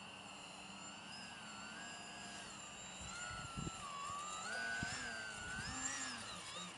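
Foam delta-wing RC plane's motor and propeller whining, the pitch wandering up and down and growing louder from about three seconds in as the plane comes closer. A few low thumps fall in the second half.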